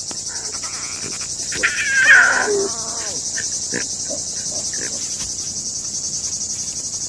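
Steady chorus of crickets or similar insects, a high, fast-pulsing trill that runs unbroken. About two seconds in, a short animal cry slides downward in pitch, with a few faint clicks scattered through.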